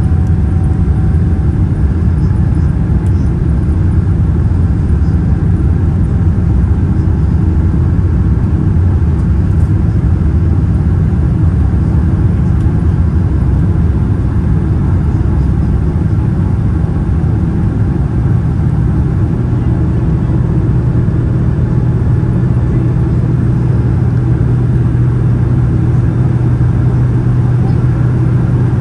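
Cabin noise of a Boeing 787-9 in flight: a loud, steady roar of engines and airflow. About two-thirds of the way through, a steady low hum rises out of it and holds.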